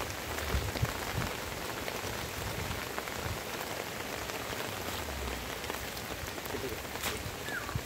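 Steady rain falling on flooded nursery beds and their plastic mulch sheeting, with a few sharper drop ticks.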